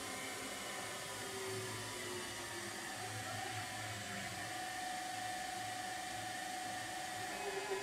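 Tormach 15L Slant-PRO CNC lathe running, its roughing tool turning white plastic stock as a steady whirring machine noise. A faint steady whine comes in about halfway through.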